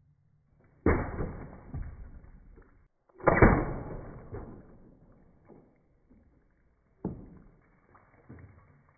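Slowed-down .177 air rifle shots and pellet impacts: three sudden bangs, about one, three and seven seconds in, each trailing off over a second or more, with a few smaller knocks near the end.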